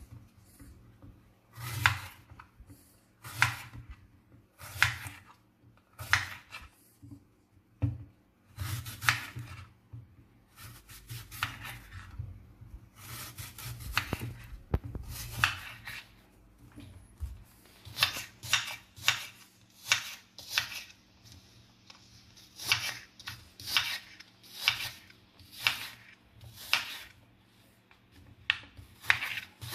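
Knife cutting a green apple on a bamboo cutting board: short slicing strokes that tap the board, about every one and a half seconds at first and about once a second near the end, with a stretch of denser scraping cuts in the middle.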